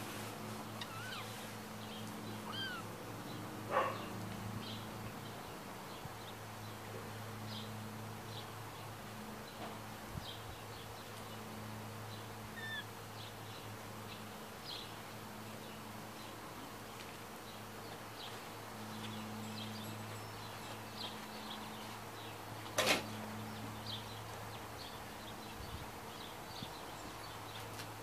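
Outdoor ambience of faint, scattered bird chirps over a steady low hum, broken by two sharp knocks: one about four seconds in and a louder one about five seconds before the end.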